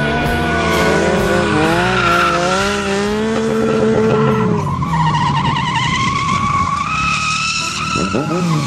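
Sport motorcycle engines revving hard, several pitches rising and falling as the bikes slide through corners, with tyres skidding and squealing. About five seconds in one engine climbs to a higher, wavering whine.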